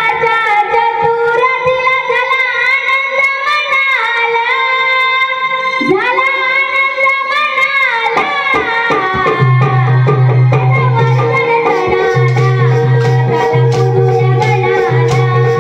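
Music with a gliding melodic vocal line and hand-drum percussion; about nine seconds in, a low held bass note comes in and repeats in long blocks.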